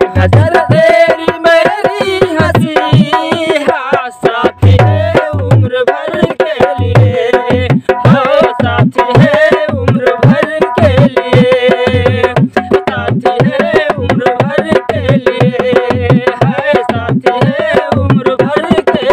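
Dholak played by hand in a quick folk rhythm, with deep bass strokes and sharp treble slaps, under a man's singing voice holding a wavering melody.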